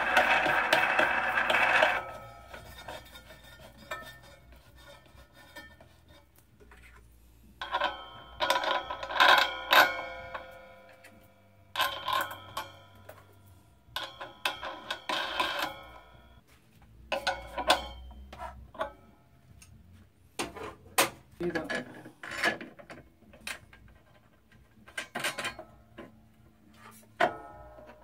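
Crash cymbal ringing in about five short bursts as it is handled and its centre nut is tightened on a homemade cymbal lathe. In the second half, scattered sharp metallic clicks and knocks.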